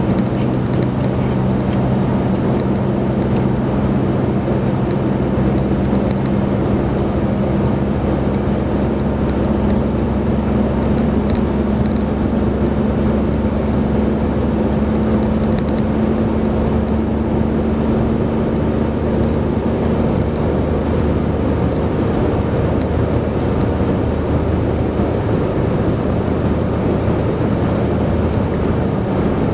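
Car driving at highway speed, heard from inside the cabin: a steady engine hum over the even rush of tyre and road noise, the hum weakening about two-thirds of the way through.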